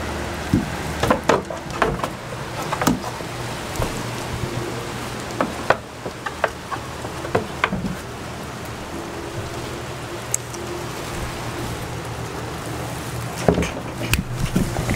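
Steady rain on a wooden shed, heard from inside, with scattered sharp taps and knocks and a faint low steady hum beneath.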